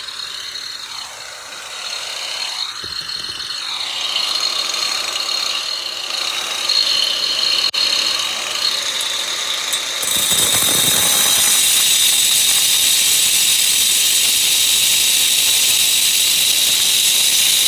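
Cheap electric grinder running with a high whine; about ten seconds in it bites into the work and a loud, steady grinding noise sets in and holds.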